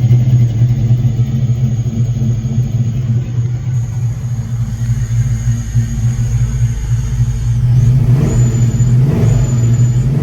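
A 5.3-litre LS V8 in a 1966 Chevrolet C10 pickup running with a steady, loud hum, with a brief rise and fall in pitch about eight seconds in.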